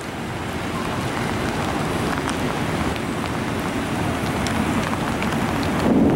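Heavy rain pouring on wet pavement: a steady hiss dotted with small drop clicks. A low rumble swells right at the end.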